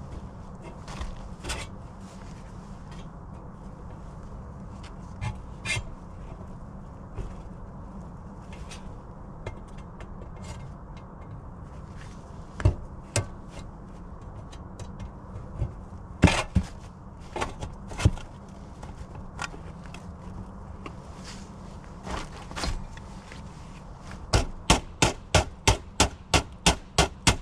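Scattered knocks and clicks of hand work on chimney counter flashing, then near the end a quick run of about a dozen hammer taps, roughly four a second.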